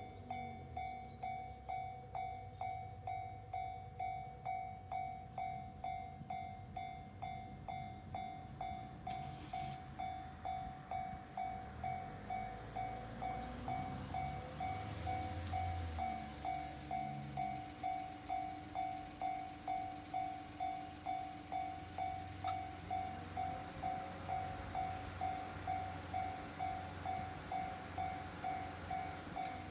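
Japanese level-crossing warning bell ringing steadily, about one and a half strikes a second, with the low rumble of an E131-series electric train underneath that swells partway through.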